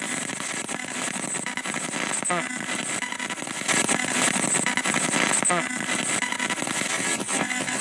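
Spirit box sweeping through radio frequencies: a steady rush of radio static, chopped by the scan, with a short chirp twice. It grows louder about halfway through.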